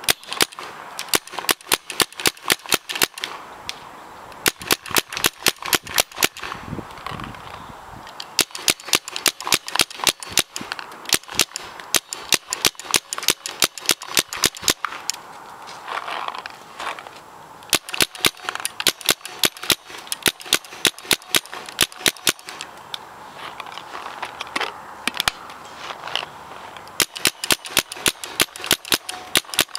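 Spyder Shutter paintball marker firing in rapid strings of sharp shots, several a second, with short pauses between strings.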